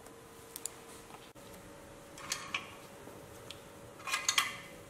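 Small clicks and short crinkles from a plastic gel jar being handled and the crumpled foil over its top being rustled, loudest in a cluster about four seconds in.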